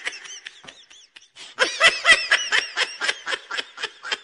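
Snickering laughter: a run of quick, high-pitched 'he-he' pulses that pauses briefly about a second in, then carries on.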